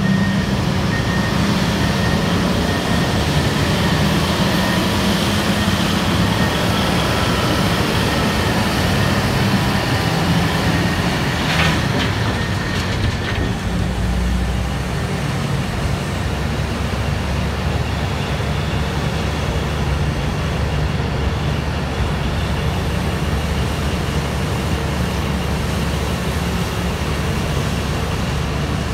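A Terex RH170 hydraulic front shovel and a Terex TR100 haul truck running steadily together while the shovel loads the truck. A reversing alarm beeps at the start, and a deep thud about halfway through comes as the bucket's load of earth drops into the truck bed.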